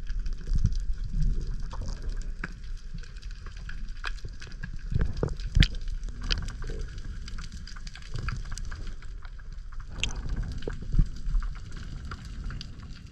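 Underwater sound picked up by a diving camera in its housing: a low rumble of moving water with scattered sharp clicks and crackles, and a louder knock about five and a half seconds in.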